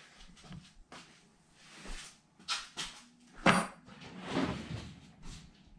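Workbench handling noises: scattered clicks, clatter and rustling as tools and parts are moved about, with one sharp knock about three and a half seconds in.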